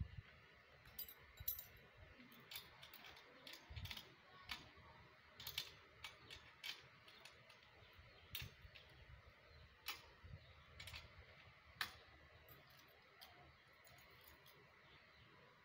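Faint, irregular metallic clicks and clinks of a satellite dish's mounting arm and bracket hardware being handled and fitted together, scattered throughout with a few louder ones.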